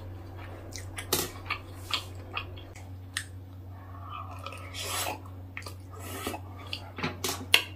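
Chewing and mouth sounds of someone eating fried rice, with scattered short clicks, over a steady low hum.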